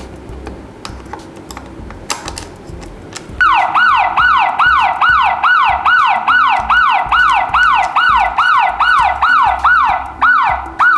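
After a few faint clicks, the Aqara N200 smart door lock's anti-tamper alarm goes off about three and a half seconds in. It is a loud siren of falling sweeps, about two a second, triggered by a wrong key tried in the lock.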